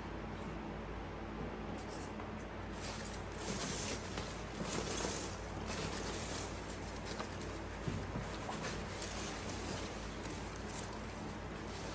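Packing material rustling and crinkling as the last orchid plant is unwrapped by hand, busiest a few seconds in, with small scattered clicks.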